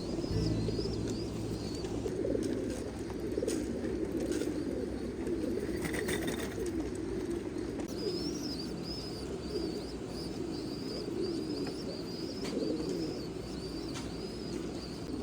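Many domestic pigeons cooing together in a dense, continuous warble. A thin, high wavering peep sounds over it at the start and again from about eight seconds in, with a few light knocks.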